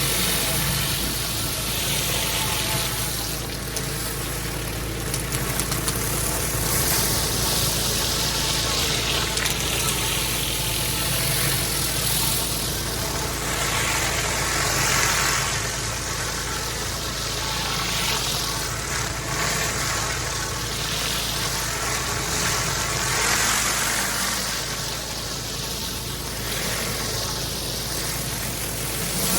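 Engine-driven pressure washer running steadily, with the hiss of the high-pressure water jet on block paving swelling and fading every few seconds as the spray sweeps across.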